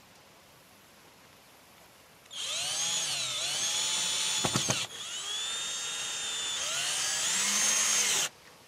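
Cordless drill driving screws into a wooden frame. It runs twice after a quiet start, each run a few seconds long with its whine sliding up and down in pitch as the trigger is worked, and a few sharp clicks in the short break between them.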